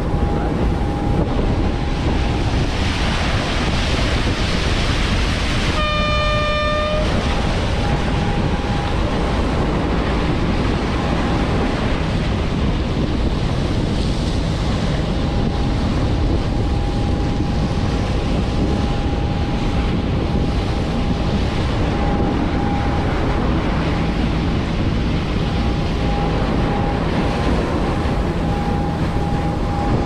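Tour boat running under way: steady engine drone and rushing water along the hull, with wind on the microphone and a faint steady whine through it. About six seconds in, a horn sounds once for about a second.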